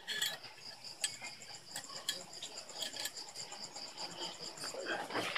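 Light metallic clinks and taps as the kickstarter pinion gear and shaft of a GY6 125 scooter engine are handled and slid into place in the open transmission case, over a steady high chirping in the background.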